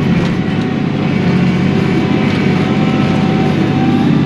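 Kioti NS6010 compact tractor's diesel engine running steadily with a low, even hum while the front loader pushes a brush pile.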